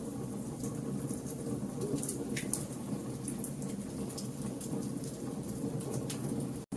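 Wood fire of burning logs: a steady low rumble of flames with frequent sharp crackles and pops. The sound drops out for a split second near the end.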